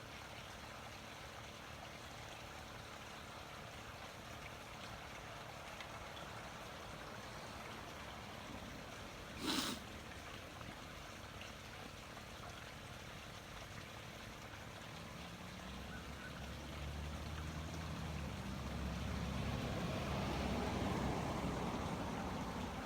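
Steady outdoor background hiss, with one short sharp knock about ten seconds in and a low rumble that swells over the last several seconds and then eases.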